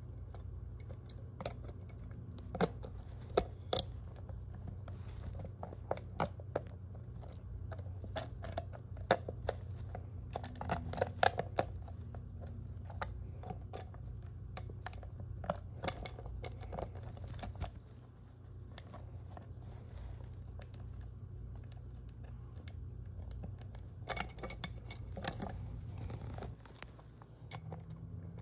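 Small metal clicks and clinks as a ceiling fan's blade bracket and its screws are handled and lined up against a fan blade, scattered irregularly with a couple of busier clusters, over a steady low hum.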